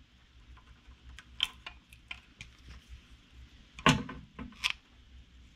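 Light metallic clicks and taps of needle-nose pliers and small carburetor parts being handled while the carburetor is fitted to the engine, with a louder knock about four seconds in.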